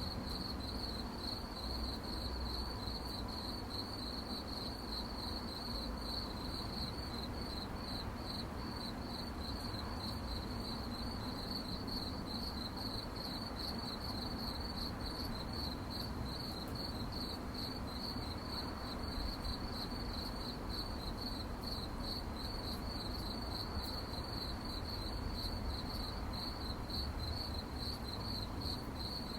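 Crickets chirping in a steady, fast, even pulsing chorus, over a low background rumble.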